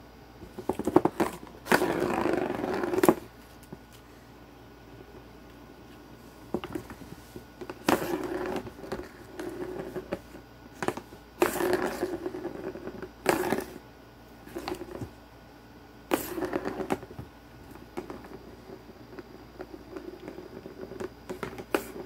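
Small plastic ball rolling around the plastic track of a round cat scratcher toy, in repeated runs of a second or two, with a few sharp knocks as it is struck.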